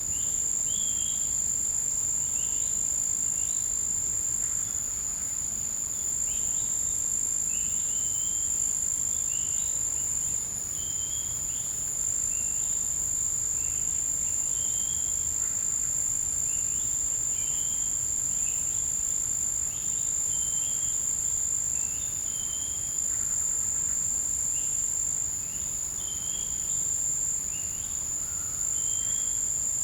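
Tropical forest insects holding a continuous high-pitched trill, with short chirping notes repeating about once every second or two beneath it.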